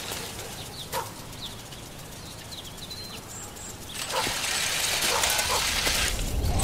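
Outdoor-style ambience: a soft hiss with a few short bird chirps, the hiss growing louder about four seconds in and a low hum swelling near the end.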